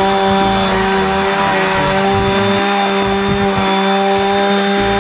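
Chainsaw engine running at steady high revs, a constant buzz holding one pitch.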